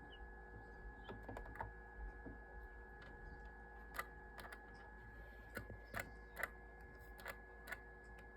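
Egg incubator humming steadily, with a dozen or so faint, irregular clicks and taps scattered through it, the loudest about four and six seconds in.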